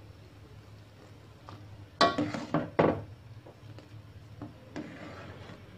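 Metal ladle knocking and scraping against a large aluminium pot as it stirs fish balls in broth: a cluster of sharp clinks about two to three seconds in, then a few lighter taps.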